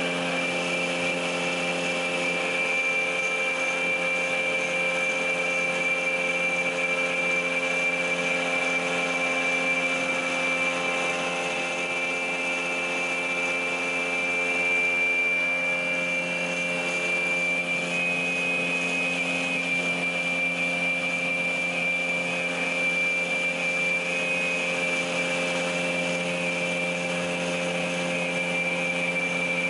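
PAUL K3U800 shaft multi-rip saw running steadily with no cut being made: an even motor hum with a high whine over it.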